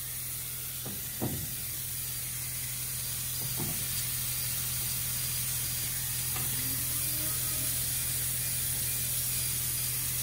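Winter wheat seed pouring in a steady stream out of a seed drill's hopper through its Fenix metering unit as the hopper is emptied, a steady hiss of falling grain over a constant low hum.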